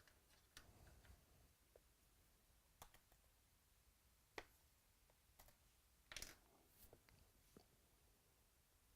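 Near silence with a few faint, scattered clicks and taps of trading cards and packs being handled, the sharpest about four seconds in and another short one about six seconds in.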